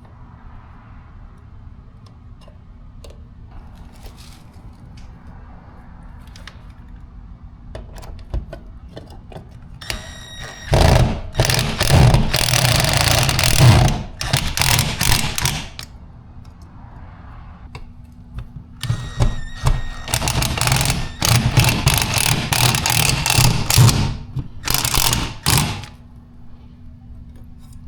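Power drill running under load in two long runs of about five and seven seconds, each opening with a brief motor whine.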